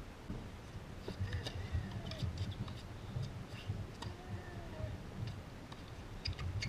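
Outdoor tennis-court ambience: low wind rumble on the microphone with scattered light clicks, among them a tennis racket striking a serve about four seconds in. Faint short chirps come through now and then.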